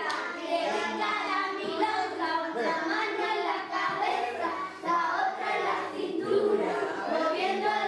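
A group of young children singing an action song together.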